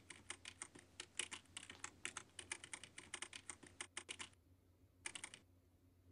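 Faint rapid typing on a laptop keyboard: a quick stream of key clicks that stops about four seconds in, followed by a short burst of a few more keystrokes.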